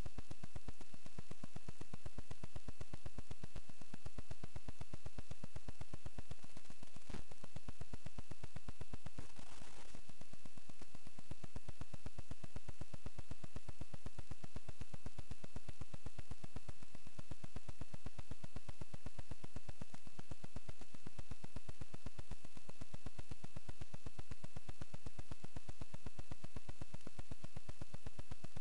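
Steady electrical buzz and hiss from the recording chain, with a faint high whine over it. There is a single click about seven seconds in and a brief swell of hiss a couple of seconds later.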